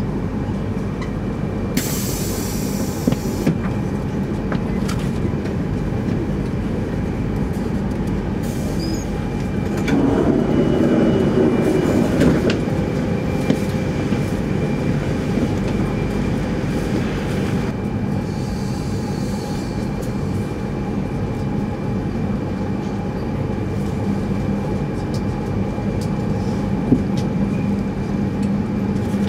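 Steady cabin hum inside a 200 series Shinkansen car standing at a station, with its onboard equipment running as a low rumble and a few constant tones. Short bursts of hiss come about two seconds in and again around eighteen seconds, and a louder spell of rumble comes around ten seconds.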